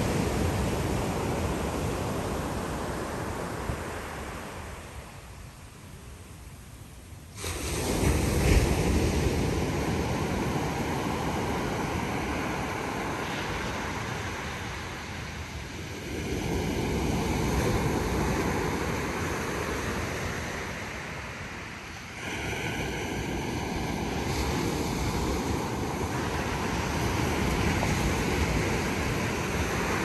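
Ocean surf breaking on a sandy beach, waves rolling in and washing up the sand in a steady wash that swells and ebbs. The level steps up suddenly twice, about seven and a half and twenty-two seconds in.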